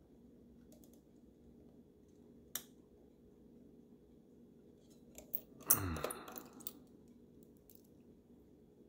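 Precision screwdriver working a small screw in a Polaroid SX-70's metal body: faint clicks and scrapes, one sharp click about two and a half seconds in, then a short louder clatter of small parts a little past halfway as the tool comes away and is set down on the mat.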